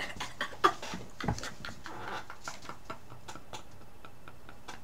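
Faint, muffled giggling held back behind a hand, with a few small clicks and rustles.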